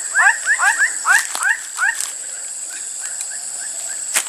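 An animal giving a quick series of short rising chirps, about four a second, that fade out after about two seconds, over a steady high-pitched drone. A single sharp click comes near the end.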